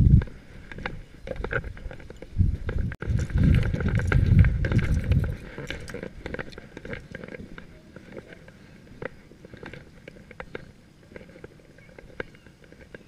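Footsteps crunching on a wet gravel road, with wind buffeting the microphone from about two to five seconds in.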